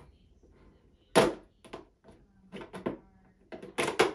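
Utility knife blade scoring hard clear plastic: a series of sharp scrapes and clicks, about seven in all, the loudest about a second in and a quick cluster near the end.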